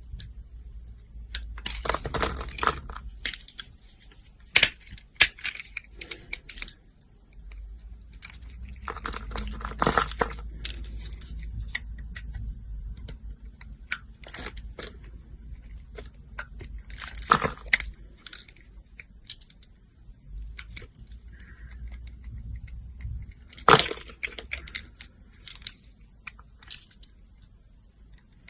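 Knife cutting into dry soap: crisp crackling and crunching in short spells every few seconds, with quieter gaps between.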